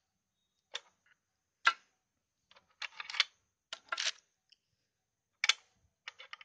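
Steel gearbox gears of a Jawa/Yezdi motorcycle engine clinking against one another and the engine case as they are lifted out by hand after the lay shaft is pulled. The sound is scattered sharp metallic clinks, some in quick clusters of two or three.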